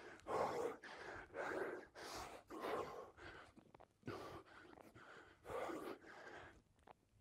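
A man breathing hard while doing press-ups: short, audible breaths about once or twice a second, with a brief pause near the end.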